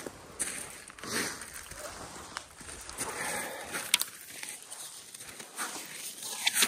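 Handling noise from landing a small blackmouth catshark on a baitcasting rod and line: irregular scuffs and rustles, with a few sharp clicks, the loudest near the end as the fish is grabbed.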